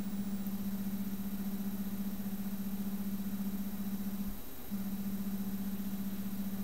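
Smartphone haptic app giving feedback on faces detected in the camera view: a steady low buzz that breaks off for a moment about four and a half seconds in, then resumes.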